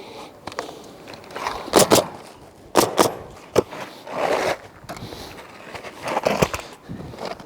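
Asphalt cap shingles being handled and fastened on a roof hip: a run of sharp knocks, several in quick pairs, between stretches of shingle scraping and rustling.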